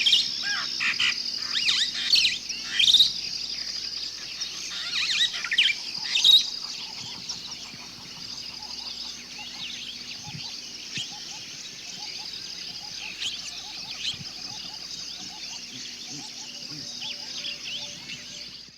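Jungle ambience: a steady, pulsing high insect drone under many bird chirps and whistles. The bird calls are busy and loud for about the first six seconds, then thin out to scattered calls.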